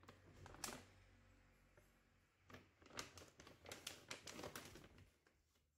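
Bag of dry puppy kibble rustling and crinkling as it is opened and a cup is dug into it, with a sharp crackle near the start and a busier run of rustling in the second half.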